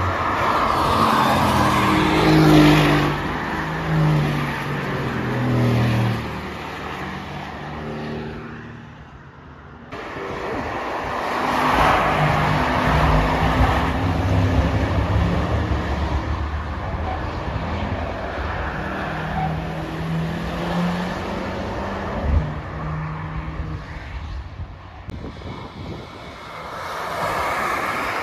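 Mercedes-AMG cars passing one after another at speed, their engines pulling hard, with notes that step up and down through gear changes and swell then fade as each goes by. The sound drops briefly about nine seconds in before the next cars pass.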